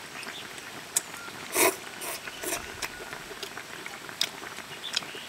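Someone eating from a bowl with chopsticks: scattered light clicks of the chopsticks against the bowl and small mouth noises, with one louder short slurp about a second and a half in.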